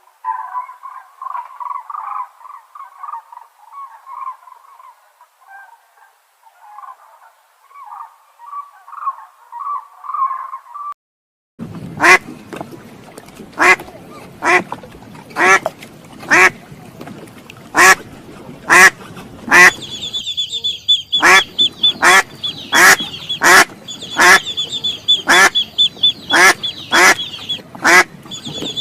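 Ducks quacking: first a soft, continuous chatter, then after a cut about eleven seconds in, loud single quacks at roughly one a second. From about twenty seconds in, a steady high-pitched chirping runs behind them.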